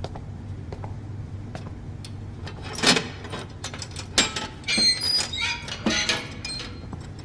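Quiet hall with a few short, scattered knocks and squeaks, the loudest of them about three seconds in and from four to six seconds in.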